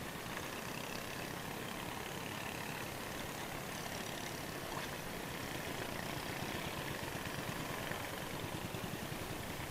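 Small outrigger fishing boat's engine running steadily while trolling, with water moving along the hull and outrigger.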